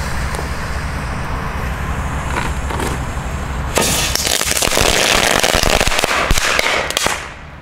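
Large Titanball crackling firework going off in a frying pan. About four seconds in it erupts into dense crackling that lasts about three seconds, then stops abruptly.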